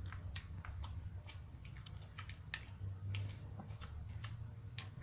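Pekingese dog crunching and chewing a hard cheese biscuit: irregular sharp crunches and clicks of teeth on the biscuit.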